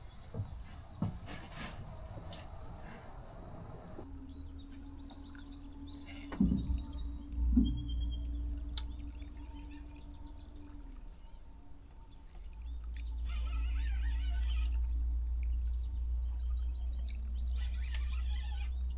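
Crickets and other insects trilling in a steady high-pitched chorus. A couple of brief knocks come about six and seven and a half seconds in, the loudest moments, and a low rumble swells up in the last third.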